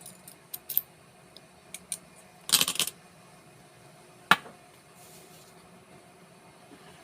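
Small metal padlock parts handled and set down on a hard surface: a few light clicks, a short clattering rattle about two and a half seconds in, and one sharp click just after four seconds.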